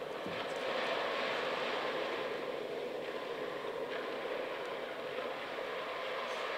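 Playback of a field recording of sea water on the South Florida coastline: a steady rushing wash of surf, a little louder about a second in.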